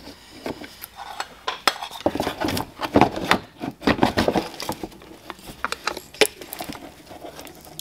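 Irregular clicks, knocks and clinks as a fog light housing is worked out of a BMW E46's front bumper and handled, with a metal Phillips screwdriver held against the lamp.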